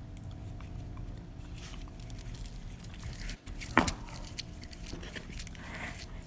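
Quiet chewing and mouth sounds of someone eating pizza, over a steady low room hum, with one sharp, loud click a little under four seconds in.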